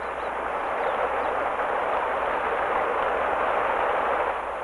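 Rushing river water, a steady hiss that grows louder about a second in and drops back shortly before the end.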